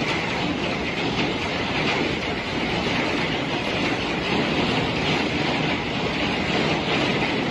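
Powerful storm wind blowing hard, a dense, steady rush of noise with no let-up.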